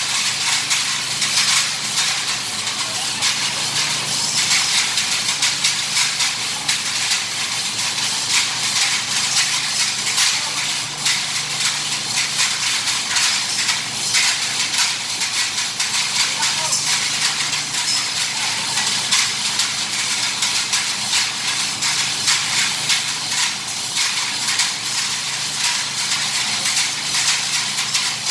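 Indistinct men's voices talking over a steady, loud noise with a low hum underneath.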